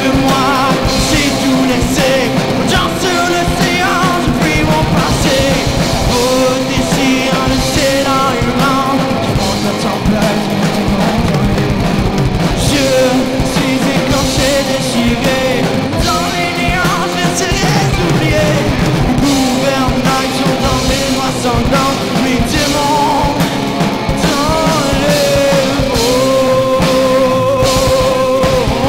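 Rock band (drums, bass and electric guitars) playing live and loud, with a long held note near the end.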